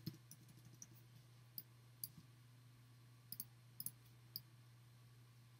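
Faint computer mouse clicks as brush strokes are painted on a Photoshop layer mask: about nine irregular clicks, a few in quick pairs, stopping after about four and a half seconds. A steady low hum runs underneath.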